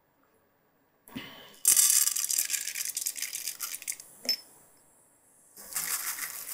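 Chana dal and urad dal dropped into hot oil in a kadai, sizzling and crackling as they hit the oil: a first bout from about two seconds in, a short click, then a second bout near the end as more is added.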